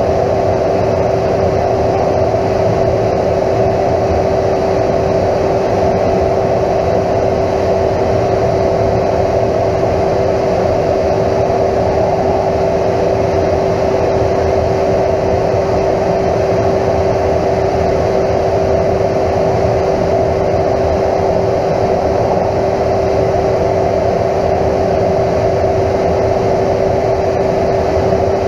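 Steady jet noise heard inside a fighter cockpit in flight: an even, unchanging rush of engine and airflow with a steady hum running through it.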